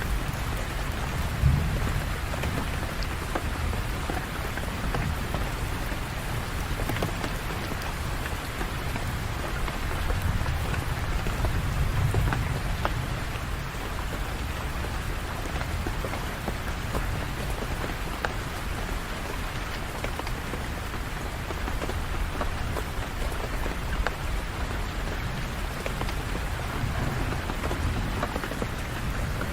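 Steady heavy rain falling on hard surfaces, with many small drop ticks. A low rumble of distant thunder swells and fades beneath it, strongest about ten to thirteen seconds in.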